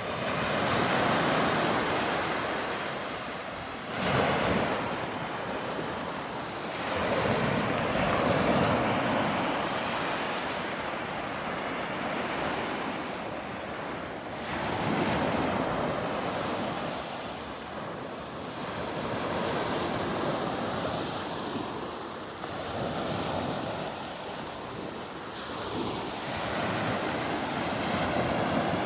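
Sea waves washing onto the shore, the surf swelling and ebbing every few seconds.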